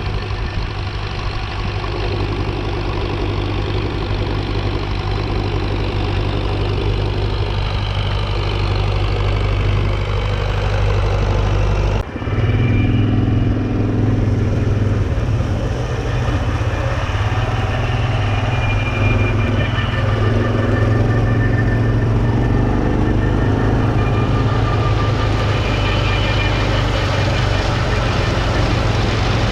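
Engines running steadily, heard from a quad bike following a tractor mowing grass with a drum mower; the sound cuts and changes abruptly about twelve seconds in.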